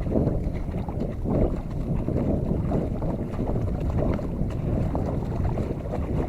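Wind buffeting the microphone: a steady, low rumble.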